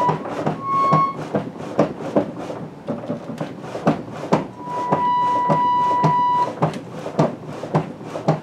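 1800s pump organ played one key at a time as its foot treadles are pumped: single reed notes sound briefly, one held for about two seconds near the middle. Underneath runs a steady rhythmic clunking and clacking of the treadles, bellows and keys. Each cleaned reed is being checked to see whether it now speaks.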